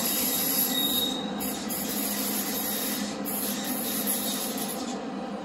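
Train passing on the tracks: a steady low drone under a high hiss that cuts out briefly twice and stops near the end.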